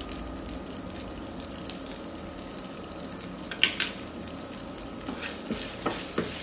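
Hot oil with cumin seeds sizzling steadily in a nonstick frying pan as chopped ginger is added, with a couple of light ticks a little past halfway. Near the end a wooden spatula starts stirring and the sizzle gets louder.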